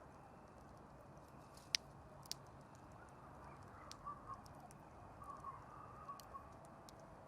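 Campfire crackling softly: a faint steady hiss broken by sharp pops and snaps, the loudest a little under two seconds in.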